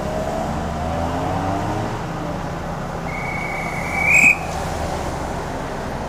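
A single shrill whistle blast about three seconds in, held for just over a second and rising slightly at the end: a police traffic officer's whistle signalling traffic to stop. Under it a lorry's diesel engine idles steadily.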